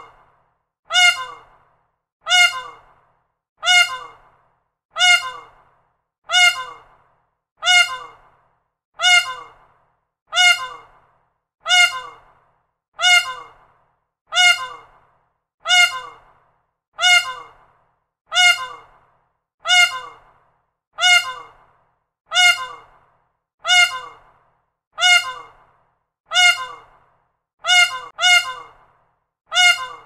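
Peacock calling: the same short, loud honking cry repeated at an even pace, about three calls every four seconds, each starting sharply and dying away within a second.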